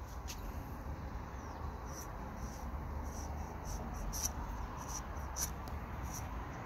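Pocketknife blade scraping and paring the freshly cut top of a cherimoya rootstock stump: faint, irregular short scratches over a low steady rumble.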